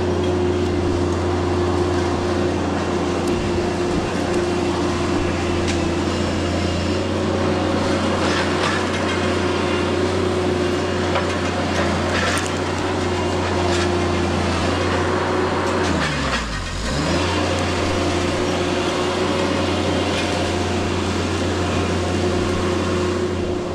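An engine running steadily at a constant speed. Its pitch sags and recovers about two thirds of the way through, with a few light clicks over it.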